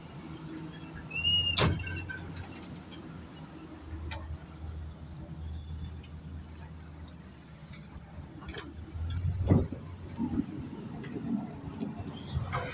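Caterpillar road roller's diesel engine idling with a steady low hum, with a few sharp clicks and knocks over it and a rougher stretch near the end.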